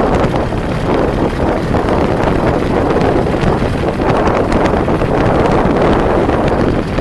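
Wind buffeting the microphone of a camera on a moving vehicle, over a steady rush of vehicle and road noise.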